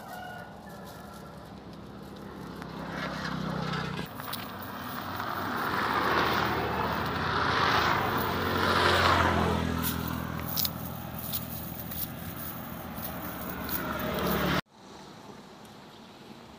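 A motor vehicle's engine running close by, getting louder toward the middle and then fading as it passes, with a few light scrapes and clicks. It cuts off sharply near the end, leaving a quieter outdoor hush.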